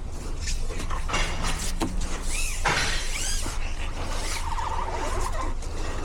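A vehicle's rear brakes squealing while it moves: short high squeals that rise and fall in pitch a little after two seconds in, then a lower wavering squeal from about four seconds to five and a half, over a steady low rumble.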